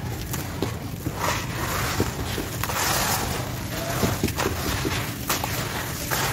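Hands crumbling dry sand-cement chunks and letting the grit fall back into a clay bowl: gritty crunching with many small clicks and repeated bursts of sifting hiss, heaviest about a second or two in.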